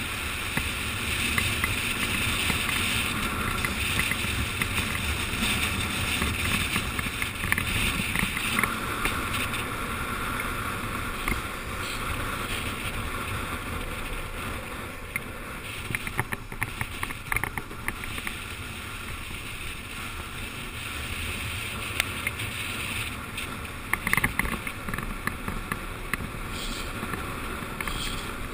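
Wind rushing over a helmet camera's microphone and the steady roar of downhill skateboard wheels rolling on asphalt at speed, with a few short sharp clicks around the middle and again later.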